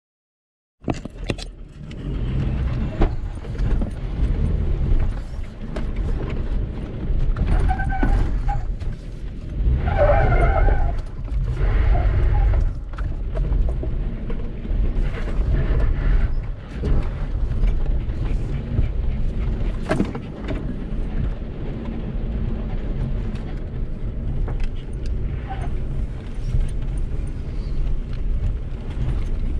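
Toyota Tacoma crawling slowly along a rocky off-road trail: a low engine rumble at crawling speed, with scattered knocks and clatter as the truck rolls over rock. The sound starts suddenly about a second in.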